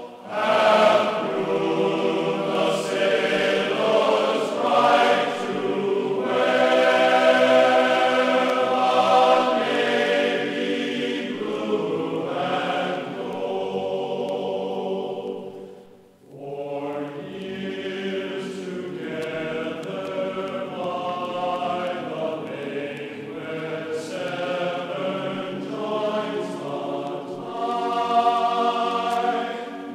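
Background music of a choir singing held chords. It fades out briefly about halfway through and then comes back.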